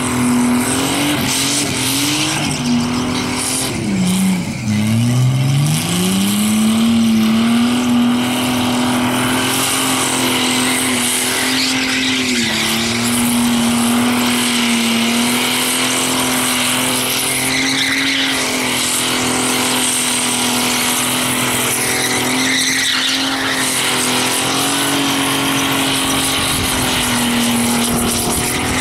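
Holden VL Commodore's engine held at high revs in a burnout, rear tyres spinning and smoking with a steady hiss. The revs drop briefly about four to five seconds in, climb straight back, and then hold steady.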